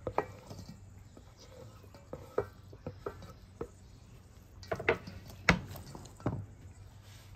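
Cubed chicken scraped off a wooden cutting board into a stainless steel mixing bowl, then stirred into tortellini with a silicone spatula: scattered soft clicks and scrapes. A few sharper knocks on the metal bowl come around five seconds in.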